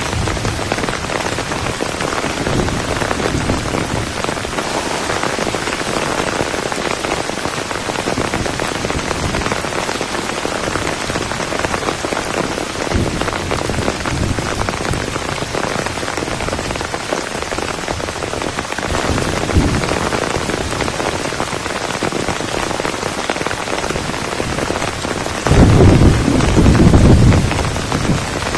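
Heavy tropical rain falling steadily, with a brief loud low rumble near the end.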